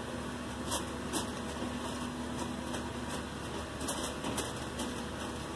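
Aluminium foil crinkling in a few short crackles as it is pressed down around the rim of a pot to seal it, over a steady background hum.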